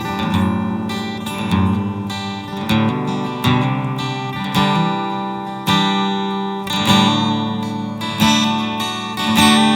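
Acoustic guitar strummed and picked in an instrumental break between sung lines, with a new stroke every second or so.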